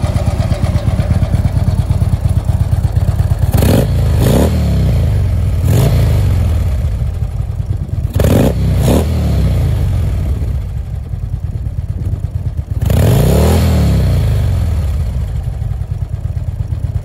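Harley-Davidson 110-cubic-inch Screamin' Eagle V-twin idling, revved with a series of throttle blips, mostly in quick pairs, then one longer rev late on, each rising and falling back to idle.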